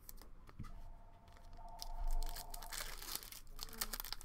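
Foil trading-card pack wrapper being crinkled and torn open by hand, with crackling rustles, loudest about two seconds in.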